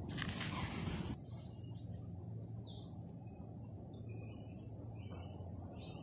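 Forest ambience: a steady high-pitched insect drone with three short falling chirps, over a low background rumble.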